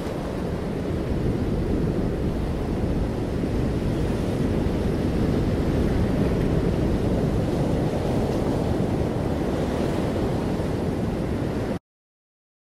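Steady rushing roar of wind and breaking ocean surf, heaviest in the low end, cutting off suddenly near the end.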